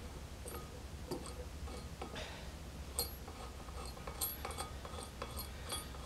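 Small metallic clicks in short, irregular runs: a ratchet wrench turning the bolts of the tapered bushing on a multi-groove V-belt pulley, over a low steady rumble.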